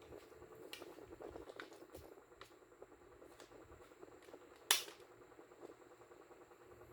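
Plastic toy bolt-action gun being handled, with scattered light clicks and rattles. About two-thirds of the way in there is one sharp, much louder snap.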